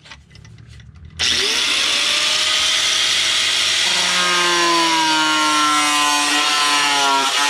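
Electric angle grinder switched on about a second in, spinning up and then grinding into steel, cutting a chamfer: a loud steady hissing whir with whining tones that drift slightly as the disc bites. Before it starts, only light handling clicks.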